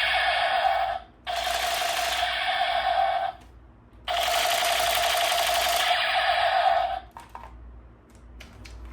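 Battery-powered toy gun firing on a held trigger, making a steady buzzing rattle in three long bursts with short pauses between them. A few faint clicks follow near the end.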